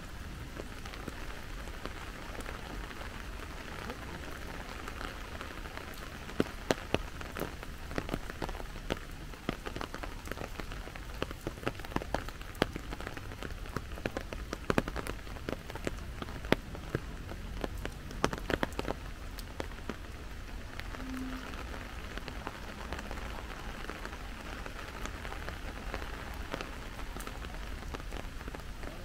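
Steady rain falling, with a run of sharp, close drops ticking loudly from about 6 s to about 19 s in.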